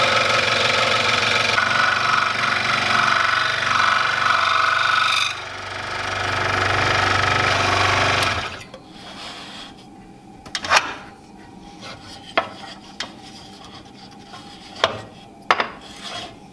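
Ryobi 16-inch variable-speed scroll saw running, its blade reciprocating as it cuts through a wooden block, with a brief dip about five seconds in. The sawing stops about eight seconds in, leaving a few sharp clicks and knocks.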